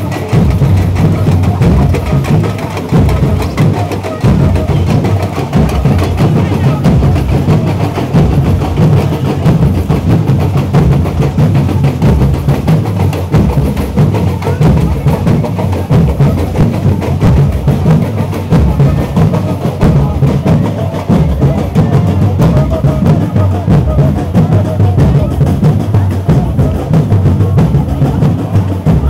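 Samba percussion music, with bass drums keeping a steady beat under lighter drums.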